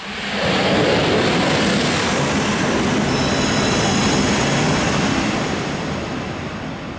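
A Tohoku Shinkansen E5 series train passing through a station at over 300 km/h: a loud rush of air and wheel noise that swells quickly, holds for several seconds with a faint high whine, then eases off as the train goes away.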